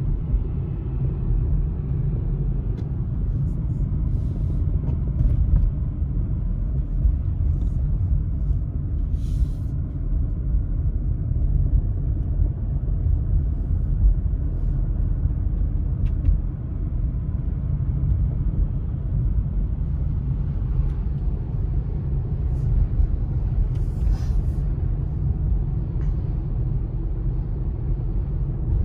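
Steady low rumble of a car driving, heard from inside the cabin: engine and tyre noise on a wet road.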